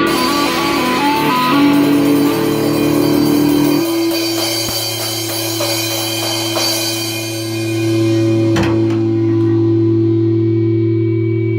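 Electric guitar playing a quick run of notes, then holding one low note that rings on steadily, with a single sharp click partway through.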